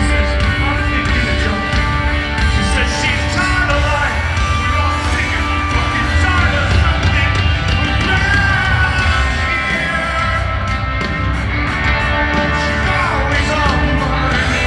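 Rock band playing live through an arena sound system: drums, bass and electric guitar at a steady level, with a singing voice over them.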